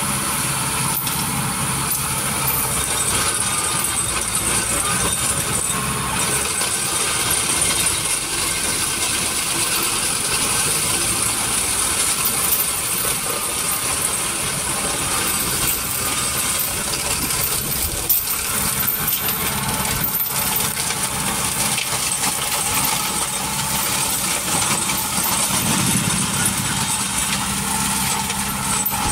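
A tractor-mounted ZEPPELIN 235 cm forestry mulcher runs steadily as it chews through shrubs and dry brush, with the tractor's engine underneath. The rotor's noise is dense and continuous, shot through with constant crackling and clatter from the wood being shredded.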